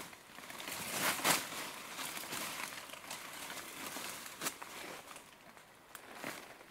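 Dry leaf litter and undergrowth rustling and crackling in irregular bursts as someone moves and handles a heavy load among the plants, the loudest burst about a second in.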